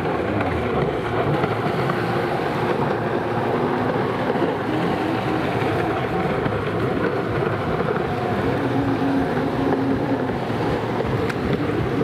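Racing jet ski engine running hard across the water, a steady drone, with wind buffeting the microphone.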